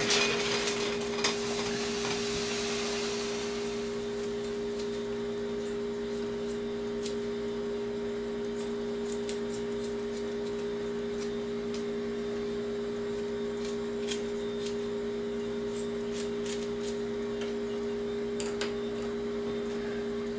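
Kitchen scissors snipping raw fish fillets over a cast-iron skillet, heard as scattered faint clicks over a steady low two-tone hum. A hiss fades out over the first few seconds.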